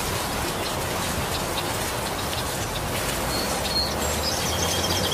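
Heavy rain falling steadily on leaves. A small bird chirps briefly a little over halfway through, then gives a quick run of high repeated notes near the end.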